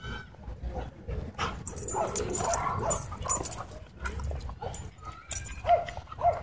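Dog whining and yipping, with a rough, louder stretch about two seconds in and two short high yelps near the end.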